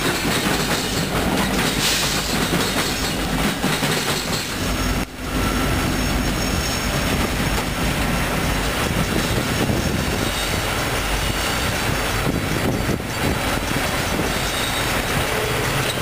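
Norfolk Southern freight train rolling past: hopper car wheels clattering over the rails, with some wheel squeal, and an SD70ACe distributed-power locomotive passing in the consist.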